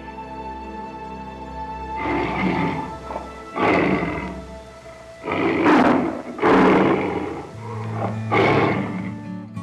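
Tiger growling: five short, rough roars about a second apart, the middle two the loudest, over background music.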